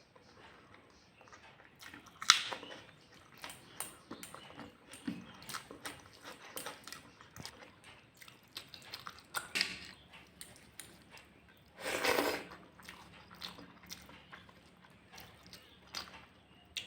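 Close-miked chewing and wet mouth sounds of a person eating egg curry and rice, with many small smacks and clicks. There are a few louder bites, a sharp one about two seconds in and a longer, noisier one about twelve seconds in.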